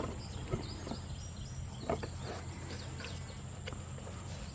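Quiet outdoor background: a steady low hum and a thin high steady tone, with a few faint scattered clicks, such as light handling of a plastic lawn-sweeper wheel.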